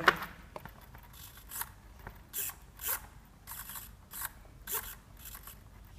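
Small hobby RC servos whirring in a series of short bursts as their gears drive the output arms back and forth, moved by turning the transmitter's channel 9 dial.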